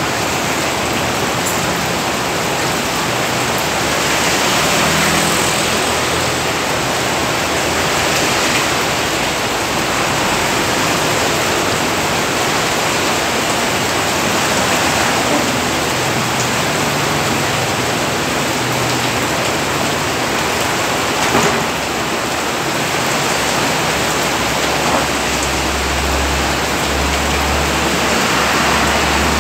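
Heavy rain falling steadily, a loud, dense hiss of downpour. A low rumble comes in near the end.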